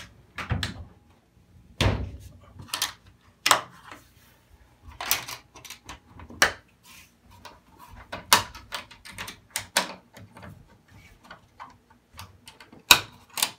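Irregular knocks, clunks and taps of wooden sauna wall panels being shifted and handled during assembly. The sharpest knock comes near the end.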